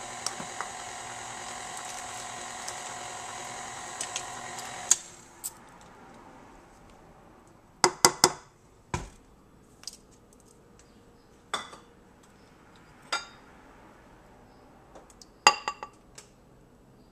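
KitchenAid stand mixer running steadily while beating cake batter, switched off about five seconds in. Then a few separate sharp clinks and knocks of the beater and measuring cup against the stainless steel mixing bowl.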